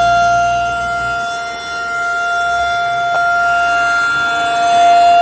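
Federal Signal 2001-DC outdoor warning siren sounding a steady single tone during its test. The loudness sags a little before two seconds in and swells again toward the end as the rotating horn turns.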